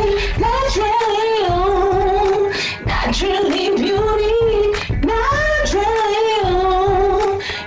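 Music: a woman singing a slow melody with long, wavering held notes over a light beat.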